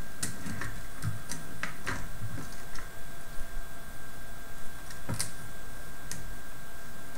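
Scattered light clicks and soft handling noise of small plastic parts as tank treads are worked around the wheels of a small tracked robot chassis kit. The sharpest click comes about five seconds in.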